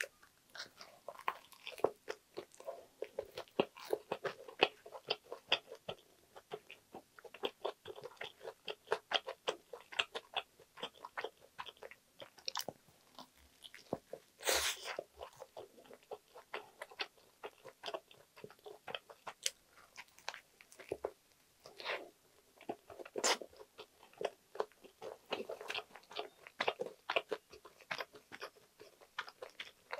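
Close-miked biting and chewing of a butter-toasted sandwich with crisp lettuce: a steady run of crunchy chewing, with a few sharper, louder bites, one about halfway through.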